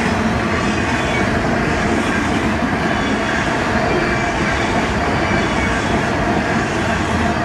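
Freight train's autorack cars rolling past: a steady, even noise of wheels on rail that does not let up.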